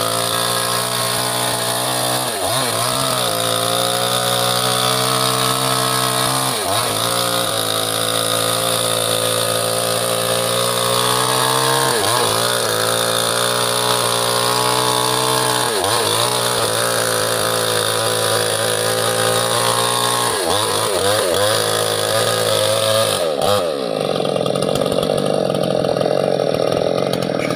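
Small two-stroke mini chainsaw running at high speed while cutting teak, its engine note sagging and recovering every few seconds as it bogs under load. Near the end the clear engine note gives way to a duller, rougher sound.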